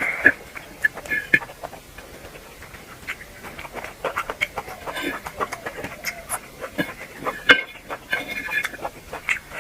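Close-miked chewing and lip-smacking while eating duck curry, made of many short, irregular clicks, with a couple of louder ones.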